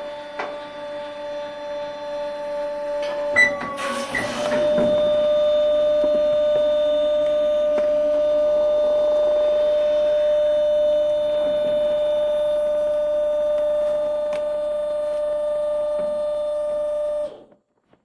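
Cardboard and paper trash compactor running with a steady motor hum. A cluster of loud clanks about three and a half to four and a half seconds in, after which the hum carries on louder until it cuts off suddenly near the end.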